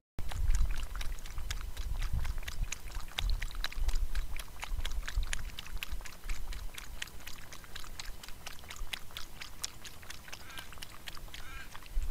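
Kangaroo lapping water from a trough: a quick, uneven run of small wet clicks, several a second, over a low rumble of wind on the microphone.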